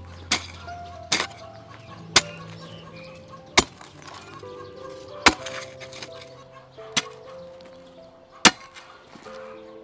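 A hoe chopping into garden soil: seven sharp strikes, about one every second or two, over soft background music.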